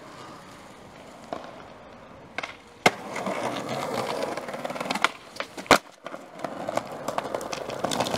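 Skateboard wheels rolling over pavement, broken by sharp clacks of the board hitting the ground. One clack comes about three seconds in, after which the rolling grows louder. The loudest comes a little before six seconds, followed by a brief hush before the rolling resumes.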